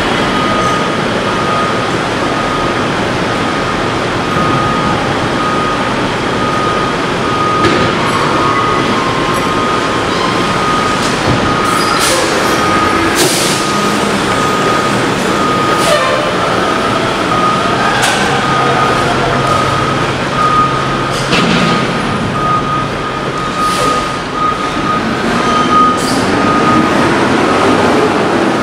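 Curbtender garbage truck running with its body tipped up, dumping a load of recyclables: a steady mechanical din with a thin, steady high tone, and scattered knocks and thuds as material drops out of the open tailgate.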